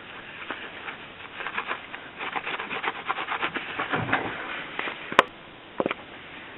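Abrasive scrub sponge rubbing rapidly back and forth over a soldered metal bezel, scrubbing the black patina off the raised texture, starting about a second in. Two sharp clicks near the end.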